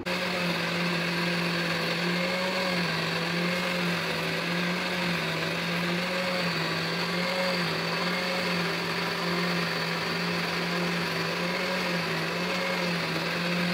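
Countertop electric blender running steadily, blending a milkshake in its glass jug. Its motor hum holds a constant level, with the pitch shifting slightly up and down.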